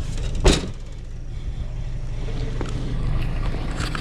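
Car running and moving, heard from inside the cabin as a steady low rumble, with one sharp thump about half a second in.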